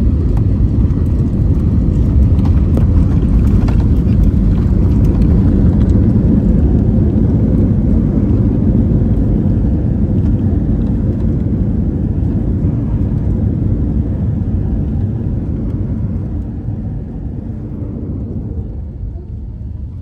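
Cabin noise of an Airbus A321-200 on its landing rollout: a loud, low rumble of the engines and the wheels on the runway that gradually fades over the last several seconds as the aircraft slows.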